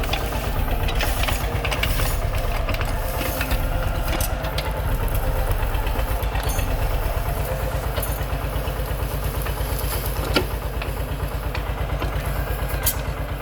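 Eicher 242 tractor's single-cylinder diesel engine running steadily with a fast low throb while it works the tractor-mounted backhoe loader digging. Two short sharp knocks come about ten seconds in and near the end.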